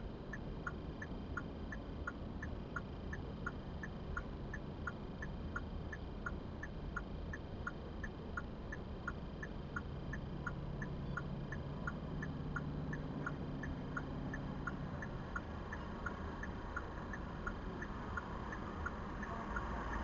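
A car's turn-signal or hazard-light indicator clicking steadily, about two ticks a second, over a low in-cabin hum of the vehicle.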